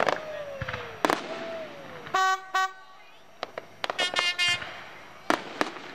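Fireworks bursting overhead: sharp bangs at the start and about a second in, with falling whistles, and two more bangs near the end. Between them a horn sounds twice, then gives a quick run of short toots.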